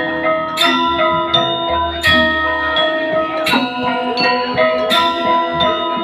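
Balinese gamelan music accompanying the Rejang dance: struck metallophones sounding phrases of ringing notes that hang on between strikes, over a steady low tone.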